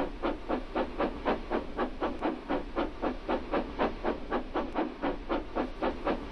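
Steam locomotive chuffing steadily along the line, about three chuffs a second.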